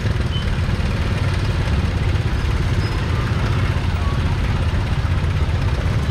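Busy street traffic with motorbike engines running as a steady low rumble.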